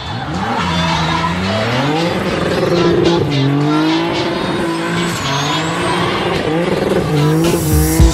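Heavily tuned BMW E46, about 627 hp at the wheels, drifting. The engine revs up over the first couple of seconds, then rises and falls again and again with the throttle while the rear tyres spin and squeal. A sharp exhaust bang comes near the end.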